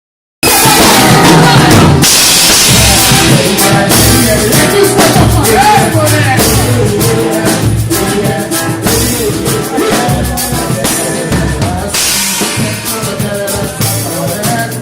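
A band playing with a drum kit and a singing voice, starting abruptly about half a second in.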